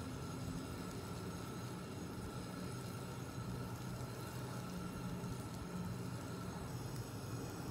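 Butter sizzling quietly as it melts and foams in a small rectangular tamagoyaki pan, a steady fine crackle without breaks.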